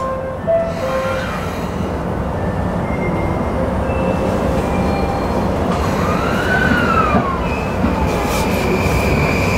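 E235 series electric train running on the rails, with the rumble of wheels and running gear under the whine of its Mitsubishi SiC-VVVF inverter and traction motors. A whine rises and falls about six seconds in, and a steady high whine sets in near the end.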